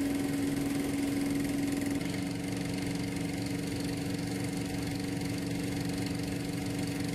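An engine running at a steady speed, with a slight change in tone about two seconds in.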